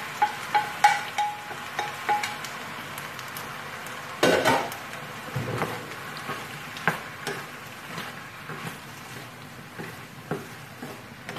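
Chopped vegetables sizzling in a steaming pan of zucchini while a spoon stirs them, with repeated clinks of the plate and spoon against the pan, a quick run of ringing clinks in the first two seconds and a louder clatter about four seconds in.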